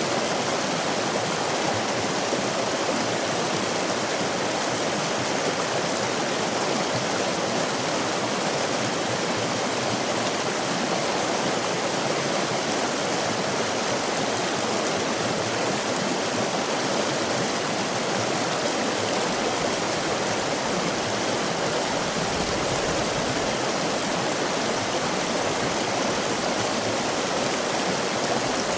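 Stream water flowing and rushing steadily over rocks, an even continuous hiss and babble.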